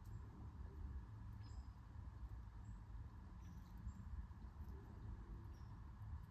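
Quiet outdoor ambience: a steady low rumble with a few faint, short, high-pitched chirps scattered through it.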